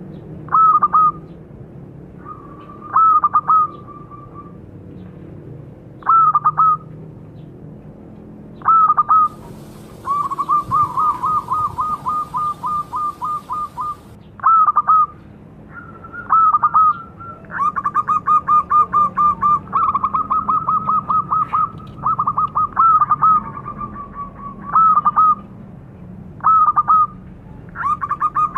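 Zebra dove (perkutut) cooing: short rolling phrases every couple of seconds, then longer runs of rapid staccato coos from about a third of the way in. A faint hiss lies under the calls for a few seconds about a third of the way in.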